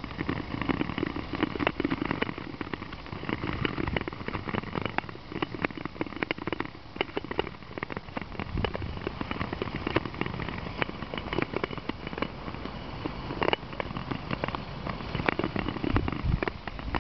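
Ice skates gliding and scraping over clear black lake ice, with a dense run of sharp crackles and ticks.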